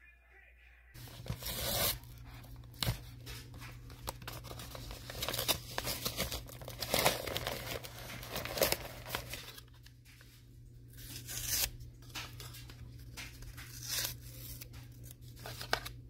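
Yellow padded paper mailer envelope being torn open by hand: a long run of ripping and crinkling paper in uneven bursts, starting about a second in.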